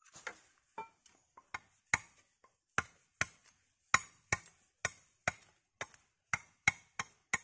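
A blade chopping and notching bamboo: about sixteen sharp knocks, roughly two a second and uneven in force.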